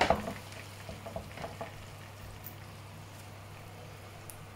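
Hot metal roasting tray set down with a clatter, then a few small crackles and pops from the roast turkey's hot fat and juices sizzling in the tray, over a steady low hum.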